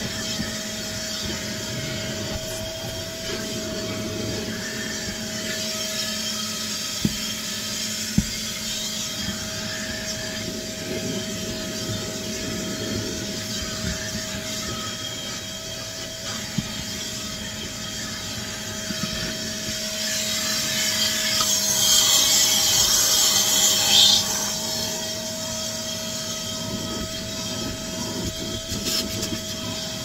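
Vacuum cleaner running inside a car, its motor a steady whine under the rushing suction. It grows louder and hissier from about 20 seconds in, then drops back suddenly about four seconds later, with a few sharp clicks along the way.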